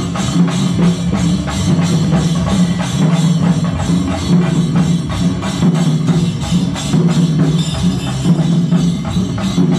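Procession drums beaten in a fast, dense, unbroken rhythm.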